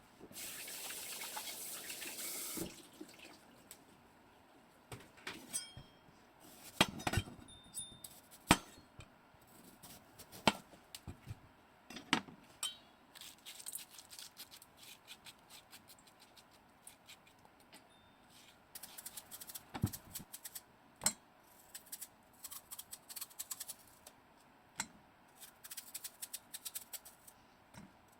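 Kitchen work: water runs briefly from a tap, then dishes and utensils clink and knock, sometimes in quick clusters.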